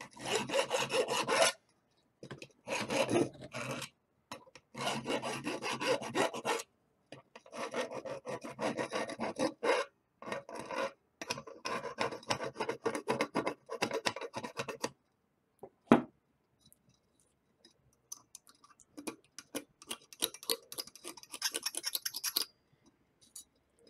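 A flat steel file rasps across a silver-brazed copper pipe joint, scraping off hardened borax flux. The strokes come in runs of quick passes with short pauses. A single sharp knock comes about two-thirds of the way in, then lighter filing strokes follow near the end.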